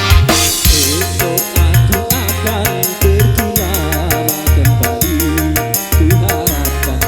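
Dangdut band music in an instrumental passage: a lead melody full of bends and trills over a repeating drum-and-bass pattern, with a fast, even cymbal tick on top.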